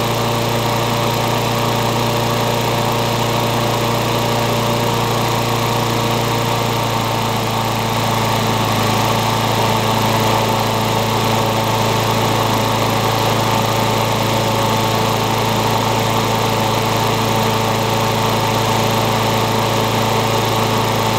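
Briggs & Stratton lawn mower engine, reassembled from donor-engine parts with a new carburetor, running steadily with the blade fitted: the rebuilt engine runs. Its note shifts slightly about eight seconds in.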